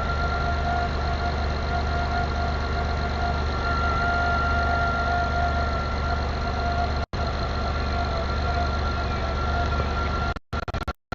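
2004 Saturn Vue's engine running steadily at idle with a constant high-pitched whine over it. The sound cuts out for an instant about seven seconds in and several times near the end.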